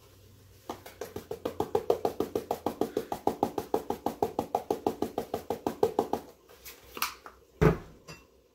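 Seasoning grinder being twisted over a small bowl, its cap ratcheting in a fast, even run of clicks for about five seconds. Then a couple of knocks as the bottle is set down on the counter.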